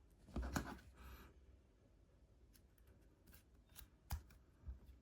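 Faint handling sounds of a SIM card and its tray being fitted into an iPhone: a brief scrape about half a second in, then a few light clicks near the end.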